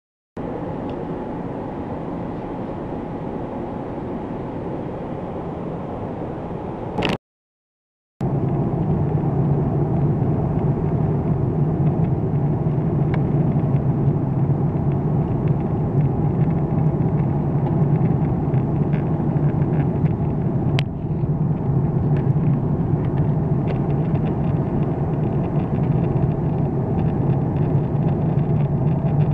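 Steady cabin drone of an Airbus A340 airliner in flight, heard from a window seat: engine and airflow noise with a strong low hum. The sound drops out briefly twice, at the very start and about seven seconds in, and is louder after the second break.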